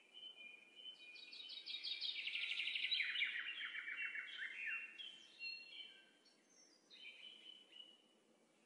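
Birds singing: chirping phrases, with a fast run of rapid notes about a second in that drops lower and lasts until about five seconds in, then scattered chirps that fade toward the end.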